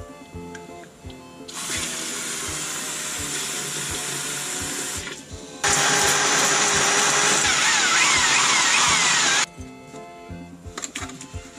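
Electric drill with a paddle mixer stirring plastering mortar in a plastic bucket, in two steady runs: a quieter one, then after a brief pause a louder one of about four seconds that stops suddenly.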